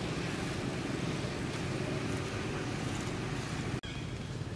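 Steady low background rumble, dropping out for an instant near the end.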